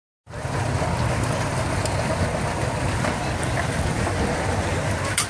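Outboard motor of a small open boat running steadily under way, a low even rumble under a rush of noise. A single sharp click just before the end.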